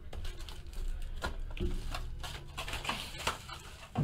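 Foil-wrapped trading-card packs and a cardboard box being handled and stacked on a table: scattered light clicks, taps and rustles.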